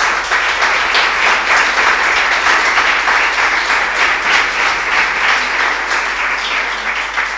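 Audience applauding, a dense run of many hands clapping that thins a little near the end.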